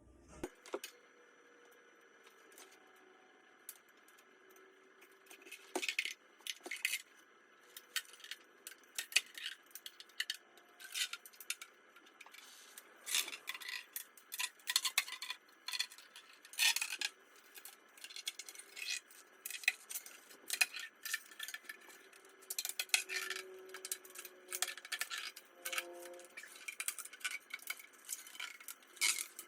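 Tubeless rim tape being pulled off its roll and pressed into a carbon wheel's rim bed: irregular light clicks, crackles and small taps, busier from about six seconds in.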